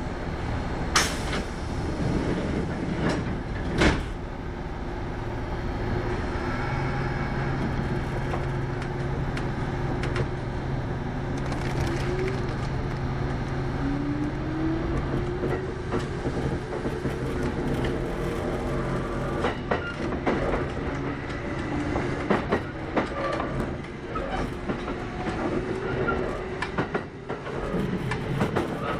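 Kintetsu 8810-series electric train running, its motor whine climbing in pitch partway through over a steady hum and rumble. Sharp knocks and clickety-clack from the wheels passing over rail joints come through it, two loud knocks in the first few seconds and clusters of clacks later.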